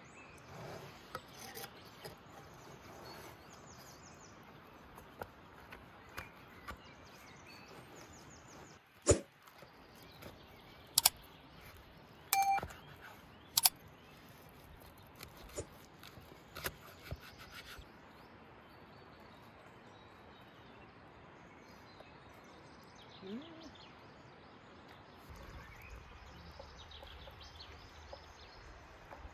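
Outdoor woodland ambience with faint bird chirps, broken by several sharp clicks or knocks, the loudest about nine to fourteen seconds in.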